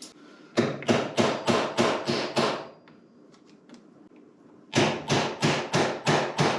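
Two runs of rapid hammer blows, about seven strikes each at three to four a second, with a short pause between, struck while trying to free the seized top nut of a motorcycle's triple-tree clamp.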